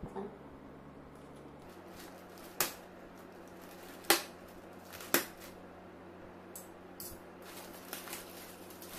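Plastic courier mailer bag being handled and pulled open on a hard floor: three sharp crinkles of the plastic in the middle, then softer crackling and rustling.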